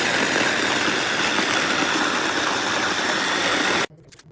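Ganiza immersion blender's electric motor running steadily at speed, then cutting off abruptly near the end.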